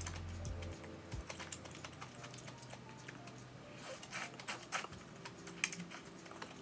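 Close-miked eating of rice noodle soup: a string of small wet mouth clicks from chewing and slurping noodles, with a denser slurp about four seconds in.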